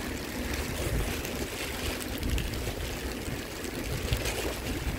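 Steady rushing noise of riding a bicycle along a rain-soaked street: tyres hissing on the wet road, with wind buffeting the microphone as a fluctuating low rumble.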